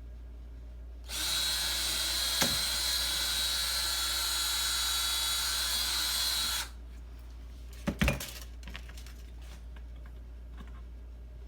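Power drill running steadily for about five and a half seconds, then two sharp knocks about a second after it stops.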